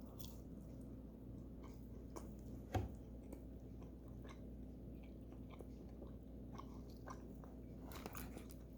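A person chewing a bite of microwaved fried chicken: quiet chewing with small scattered clicks, and one sharper knock about three seconds in.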